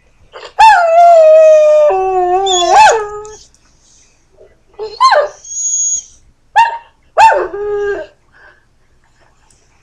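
A dog howling: one long howl of about two and a half seconds that slides down in pitch and swoops up at the end, then several shorter howls a few seconds later. A brief thin, high-pitched tone sounds between them.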